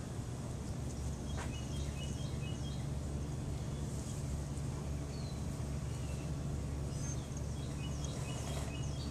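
Small birds chirping in short, quick series of high notes, twice, over a steady low background rumble.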